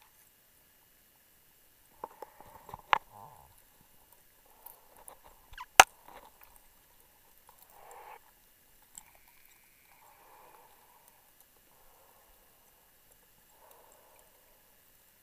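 Muffled breathing of a diver on a closed-circuit rebreather, a soft breath every two to three seconds, heard through an underwater camera housing. A sharp knock comes about three seconds in and a louder one near six seconds: diving gear striking the wreck.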